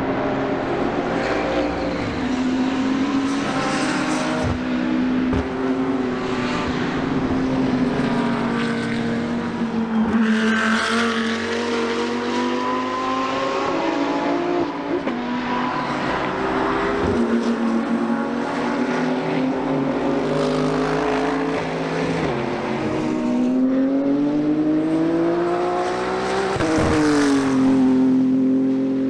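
GT3 race cars, the BMW M4 GT3 with its turbocharged straight-six among them, running hard past the trackside, several engines overlapping. Engine pitch rises under acceleration and drops sharply at upshifts, most plainly near the end.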